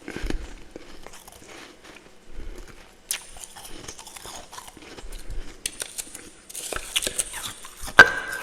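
Close-miked biting and chewing of powdery freezer frost: irregular crunching and crackling, with one sharp, loud crunch near the end.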